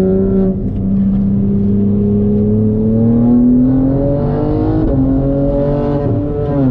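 BMW G80 M3's twin-turbo inline-six heard from inside the cabin under acceleration on track. Its note climbs slowly in pitch, dips briefly about five seconds in, and drops again near the end.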